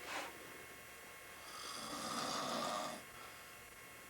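A man snoring in his sleep. The tail of one snore sounds at the very start, and a long snore of about a second and a half comes in the middle.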